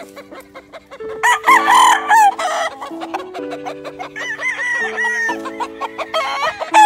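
Game rooster crowing loudly about a second in, with weaker calls later, over background music of steady held chords.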